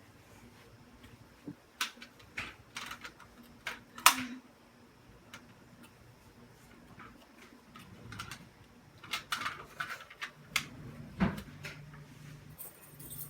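Fire alarm pull stations being handled and reset: irregular clicks and clacks of plastic and metal parts snapping into place, with the loudest knock about four seconds in and a quick run of clicks about two-thirds of the way through. A light metallic jingle starts near the end.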